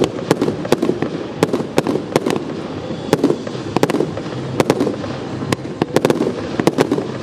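Fireworks display: a rapid, irregular series of sharp bangs and pops, about three or four a second, from shells launching and bursting, over a steady background din.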